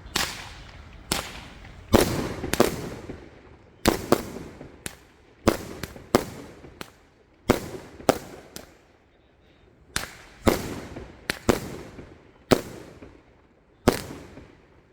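A 16-shot all-sound firework cake firing a string of sharp bangs at irregular intervals, roughly one or two a second. Each bang echoes away, and there is a brief lull about two-thirds of the way through.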